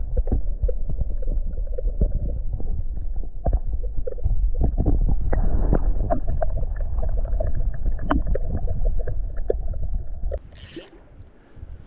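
Muffled underwater sound of a river current, as heard by a submerged camera: a loud low rumble full of gurgles and small clicks that cuts off suddenly about ten seconds in. Two short hisses follow near the end.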